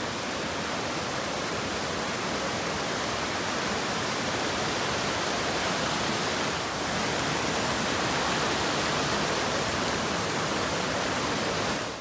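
Mountain stream rushing over boulders in small cascades: a steady, even rush of water.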